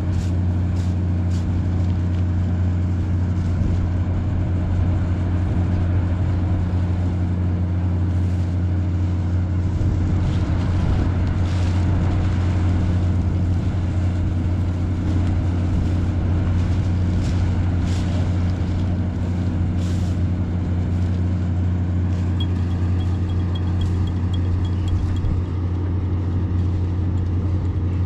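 An engine running steadily at a constant speed, with occasional light clicks over it.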